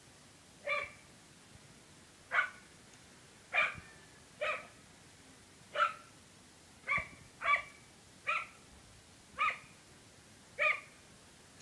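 A dog barking at a goose: about ten short, sharp barks, roughly one a second.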